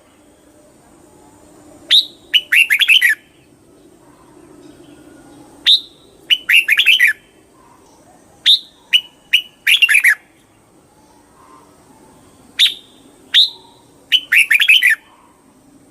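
Red-whiskered bulbul singing: loud, short phrases repeated every few seconds, each a sharp falling note followed by a quick run of warbling notes. A faint low hum runs underneath.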